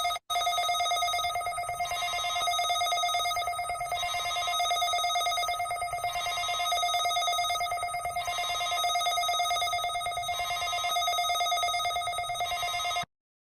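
Electronic alarm tone from an alarm video played on a tablet: one steady held pitch with several overtones, swelling and easing about every two seconds, that cuts off suddenly near the end.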